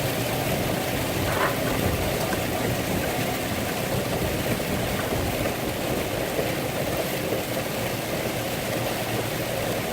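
Semi-truck engine idling steadily while the truck stands in stopped traffic.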